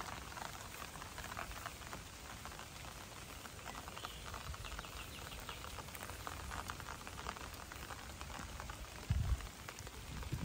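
Light rain pattering on the pond and the surrounding leaves: a steady crackle of fine drops. A single low thump comes about nine seconds in.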